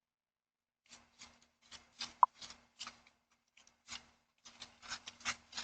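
A donkey's hooves clopping on hard ground as it walks: irregular sharp clicks, two or three a second, starting about a second in. A short squeak about two seconds in is the loudest sound, and a faint steady hum runs under part of it.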